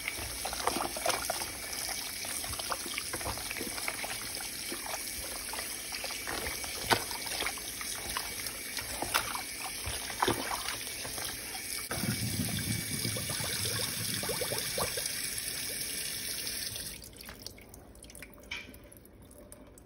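Kitchen tap running steadily into a plastic bowl of raw chicken in a stainless steel sink, with splashing as hands rub and turn the meat under the stream. Near the end the water stops, leaving a few drips and handling sounds as the bowl is drained.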